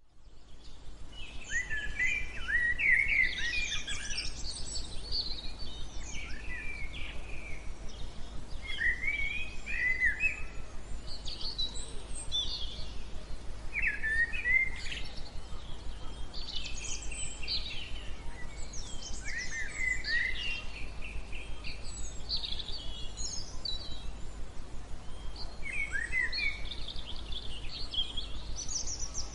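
Steady white noise with birds chirping and singing over it: clusters of short rising and falling calls come every few seconds. The sound fades in over the first second.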